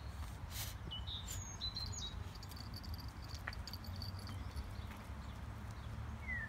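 Outdoor ambience: a steady low rumble, with a few faint bird chirps about a second and a half in and a thin, high twittering after.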